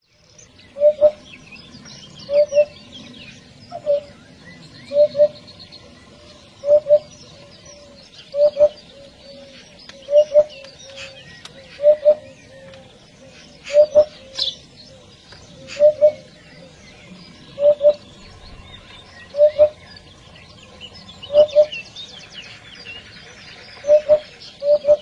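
Eurasian hoopoe calling: a low, hollow two-note 'oop-oop' repeated about every one and a half to two seconds. Smaller birds chirp and trill high in the background.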